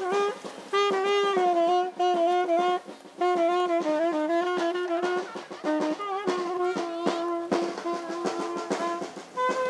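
Small street band playing: a saxophone carries the melody in short phrases over drum beats.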